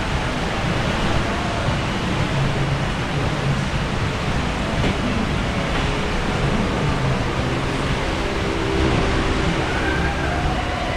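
Steady rushing noise of water running through the water slide and wind, with faint distant voices.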